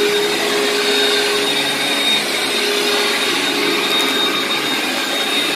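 Commercial HEPA vacuum cleaner running steadily on carpet: a constant rush of suction with a steady whine from the motor.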